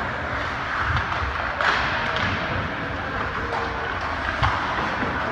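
Game ambience in a sports arena: a steady background din with a few sharp knocks, the clearest about two seconds in and again near the end.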